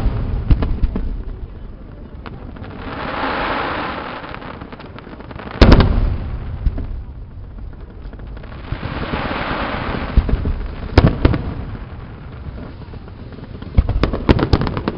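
Aerial fireworks display: heavy booms of shells bursting, one about six seconds in and another about eleven seconds in, then a rapid cluster of bangs and pops near the end. Between the booms, a rushing hiss swells and fades twice.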